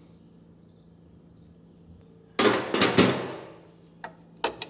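Metal wrench scraping and clanking on a tractor's hydraulic hose fittings as the loose, leaking fittings are tightened: a loud burst of scraping and clatter about halfway through that dies away, then a few sharp metallic clicks near the end.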